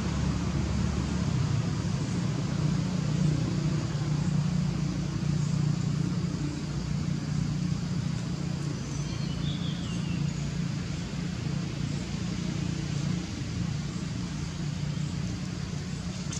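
Steady low hum of a running engine, easing off somewhat in the last few seconds, with a faint high chirp about nine seconds in.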